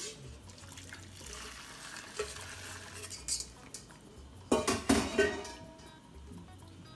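Water poured through a stainless-steel mesh strainer into a pot of soup while a spoon scrapes and presses paste through the mesh, then a few sharp metal knocks of the spoon and strainer against the pot about four and a half to five seconds in.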